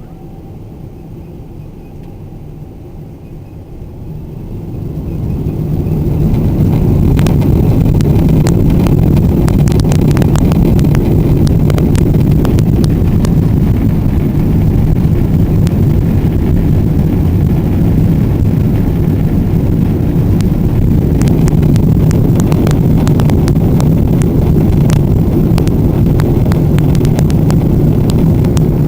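Boeing 777 jet engines spooling up to takeoff thrust about four to six seconds in, then running loud and steady as the airliner accelerates down the runway, with frequent clicks and rattles.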